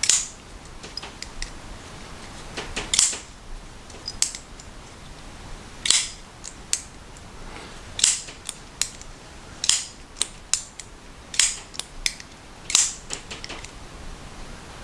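Kizer Tangram Vector button-lock folding knife being flicked open and closed again and again, about eight sharp snaps roughly every one and a half seconds as the blade swings out and locks, with fainter clicks between. This is the action being tested after reassembly with flattened, polished pivot washers and a lubed pivot.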